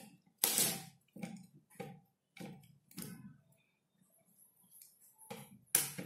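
Small screwdriver working the terminal screws of a plastic modular switch plate as a wire is fastened in: a run of short, irregular clicks and scrapes, with sharper ones about half a second in and near the end.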